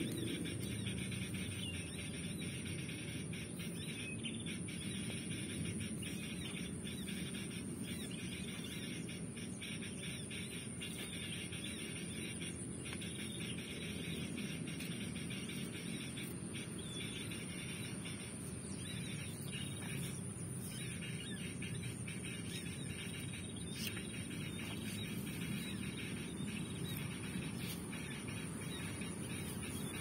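Outdoor ambience with bird chirps, a continuous high-pitched thin whine and a low rustling haze.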